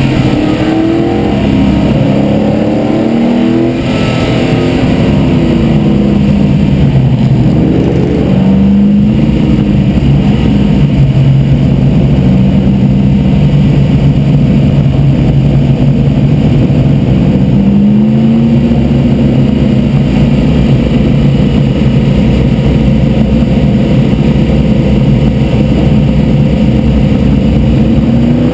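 Race car engine heard from inside the cockpit, running hard on track. Its pitch swings up and down in the first several seconds, rises again a little past halfway, and otherwise holds a steady note.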